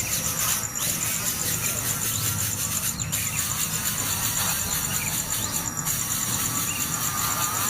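Nestlings begging for food with thin, squeaky cheeps, over a steady high buzzing of insects.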